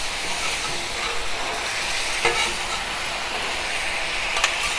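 Shrimp and rice-noodle stir-fry with its sauce sizzling on a 36-inch Blackstone griddle, a steady hiss. Metal spatulas click against the griddle twice, once about halfway and once near the end.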